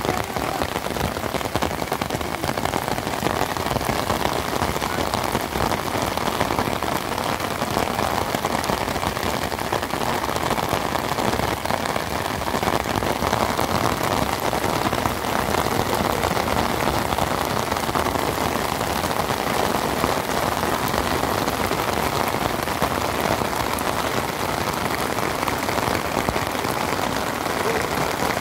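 Steady rain, a dense, even patter of drops that doesn't let up.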